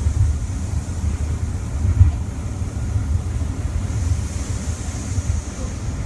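Commuter train running, heard from inside the carriage: a steady low rumble from the wheels and running gear, with a faint hiss over it.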